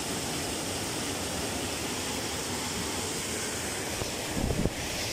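Steady rush of water pouring through a sluice gate's steel grille and over concrete. A brief low rumble about four and a half seconds in.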